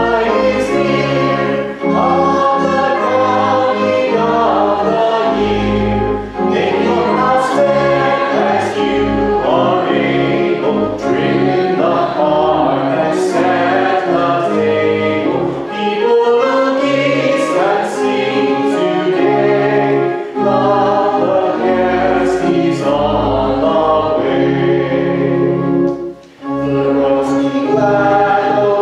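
A congregation singing a hymn together, led by two clergy, over an instrumental accompaniment with held bass notes. The singing breaks off briefly between lines, about every four to five seconds.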